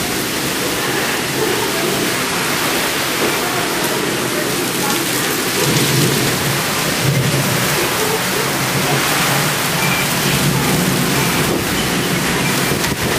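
Heavy thunderstorm downpour, rain pouring steadily, with a long low roll of thunder starting about halfway through.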